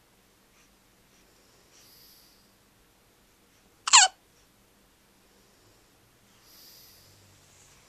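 A single sharp, high-pitched hiccup about four seconds in, with soft breathing before and after.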